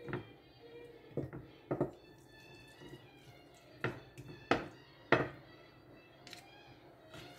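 Spaghetti being served from a pan onto a ceramic plate with a wooden spoon and a metal utensil: a series of sharp clinks and knocks on the plate, about eight in all, the loudest about four to five seconds in.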